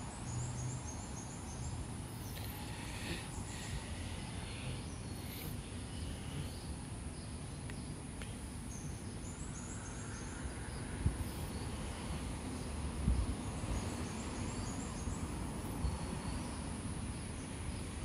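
Steady outdoor background noise with a low rumble, broken three times by short runs of high-pitched chirps from small birds. There are two brief low thumps in the second half.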